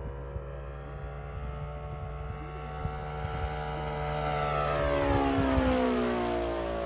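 RC scale warbird's O.S. GF40 single-cylinder four-stroke petrol engine and propeller running steadily in flight. About four seconds in it grows louder as the plane passes close, and its pitch then drops as it goes by.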